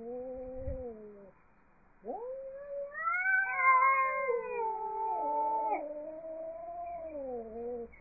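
Angry cat yowling: a long wavering yowl trails off about a second in, and after a short pause a second, louder yowl rises and wavers up and down for about six seconds.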